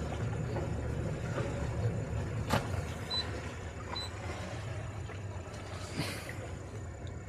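Twin outboard motors running steadily with a low drone, with two sharp clicks, about two and a half seconds in and near six seconds.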